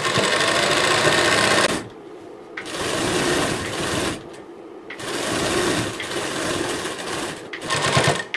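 Sewing machine running as it stitches a seam through two layers of blouse fabric. It stops briefly twice, at about two seconds in and again near the middle, so it is heard in three spells.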